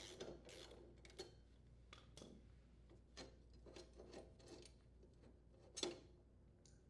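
Faint, irregular clicks and clinks of steel lawn mower blades being handled and pulled off the blade holder by gloved hands, with one sharper click a little before the end.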